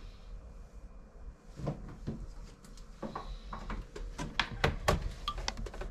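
Hands handling metal beer-dispensing gear: a run of sharp clicks and knocks, sparse at first and thickest about four to five and a half seconds in.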